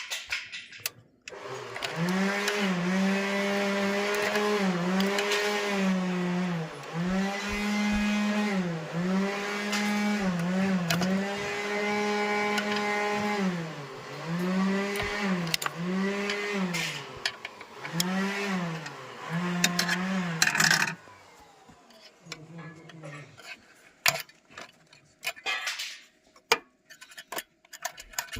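A small motor whining, its pitch dipping and recovering every second or two for about twenty seconds, then fading out. Scattered clicks and knocks follow near the end.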